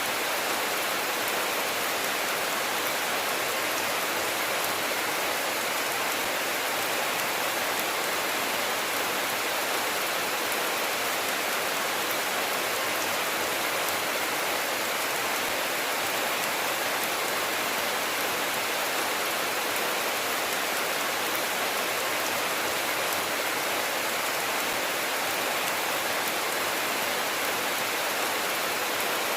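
Steady rainfall, an even, unbroken hiss of drops with no thunder.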